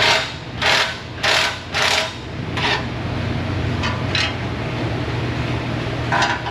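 Work on a Corolla's exhaust during a muffler install: four short noisy bursts from a tool, about two-thirds of a second apart, then a few light metallic ticks, over a steady low shop hum.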